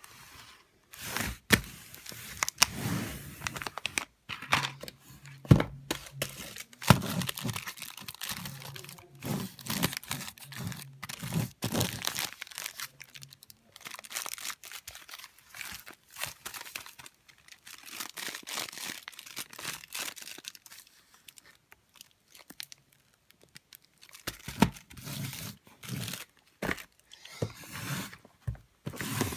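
Packaging crinkling and tearing as it is handled, in irregular bursts of sharp crackles with a short lull about three quarters of the way through.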